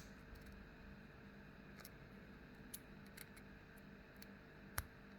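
Faint, scattered small metallic clicks of a tubular lock pick and tensioner working the pins of a stainless steel 5-pin tubular padlock, with one sharper click near the end.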